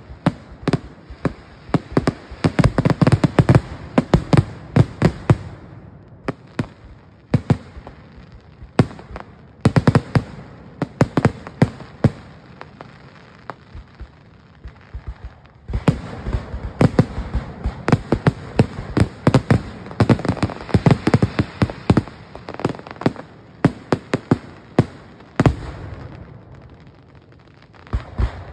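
Fireworks display: aerial shells launching and bursting in rapid volleys of sharp bangs and pops, with short quieter lulls between the volleys.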